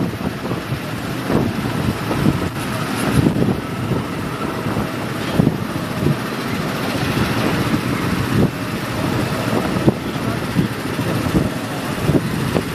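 Go-kart engines running as karts lap the track, a steady uneven mechanical drone.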